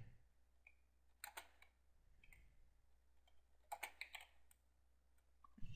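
Faint keystrokes on a computer keyboard: two short runs of typing about a second in and just before four seconds in, with near silence between.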